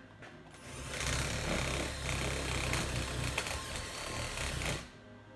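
TIG welding arc buzzing steadily. It starts about half a second in and cuts off near the end.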